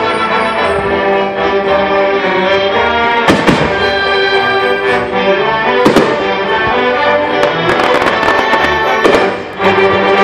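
Music with brass plays alongside aerial fireworks bursting: sharp bangs about three and a half and six seconds in, then a run of crackles near the end.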